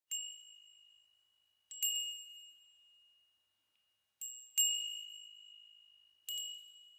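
A single high chime note struck about six times at uneven intervals, some strikes in quick pairs, each ringing out and fading away. Every strike is on the same pitch.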